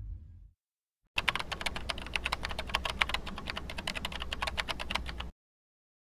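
Keyboard typing sound effect: rapid, dense key clicks starting about a second in and stopping abruptly about four seconds later. Before it, the low tail of the intro sound fades out within the first half second.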